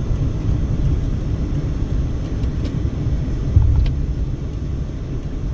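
Steady low road and engine rumble of a moving Mercedes-Benz car, heard from inside the cabin, with a brief louder thump about three and a half seconds in.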